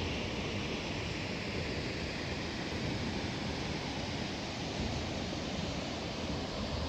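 Steady, even rushing of a tall waterfall, Wallaman Falls, heard across the gorge from the clifftop lookout.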